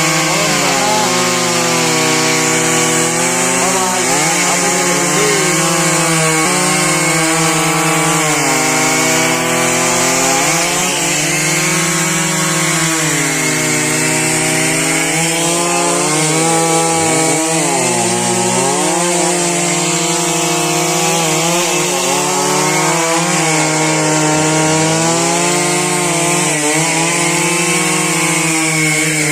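Large Stihl two-stroke chainsaw cutting through trembesi (rain tree) wood at high revs. Its pitch sags several times as the chain loads up in the cut, then climbs back.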